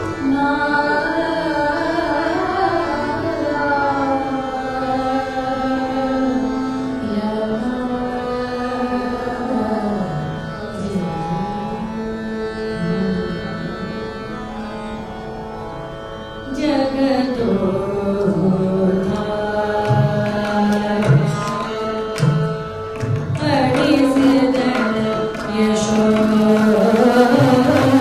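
Indian classical music in raga Kapi: a gliding, ornamented melody over a steady tanpura drone, with hand-drum strokes coming in a little past halfway.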